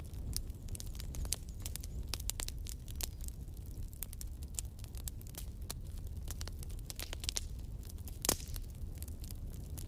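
Rain pattering and dripping onto a plastic tarp shelter: irregular sharp ticks over a steady low rumble, with one louder snap near the end.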